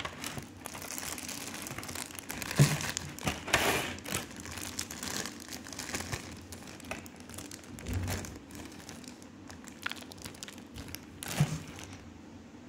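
Cellophane wrapper and a thin clear plastic tray crinkling and crackling as they are handled and opened, with a few louder crackles and knocks among the steady rustle.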